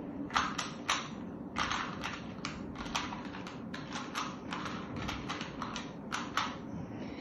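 A 3x3 Rubik's Cube being turned quickly by hand: a fast, uneven run of plastic clicks as the layers snap round, about three or four a second, stopping shortly before the end.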